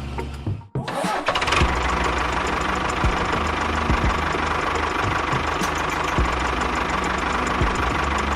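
A small motor starts up after a short break and runs steadily, with a constant whine and occasional sharp knocks.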